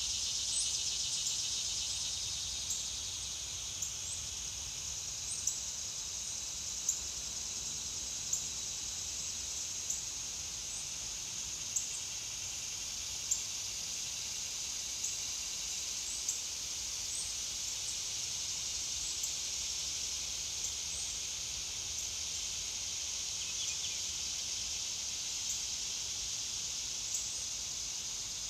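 Steady high-pitched insect chorus, with a short high chirp repeating about every second and a half.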